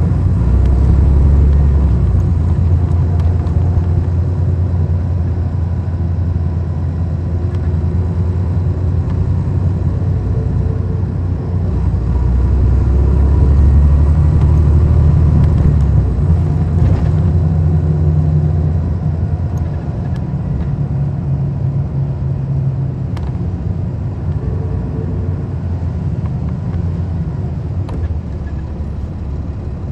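Cummins ISL9 diesel engine of a NABI 40-foot transit bus, heard from the rear seats while the bus drives. The engine note swells about eleven seconds in, eases off after about eighteen seconds, and is quieter near the end.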